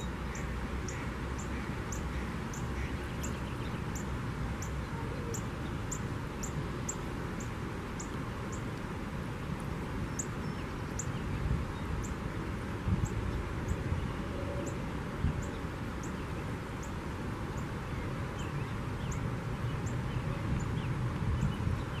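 Outdoor ambience: a steady low rumble and hiss, with a small bird's very high, thin call repeated about twice a second throughout.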